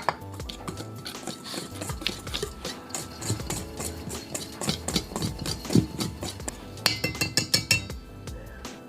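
A utensil stirring dry pandesal ingredients (flour, sugar, powdered milk, oatmeal) in a mixing bowl: irregular scraping and tapping, with a quick run of ringing clinks against the bowl about seven seconds in.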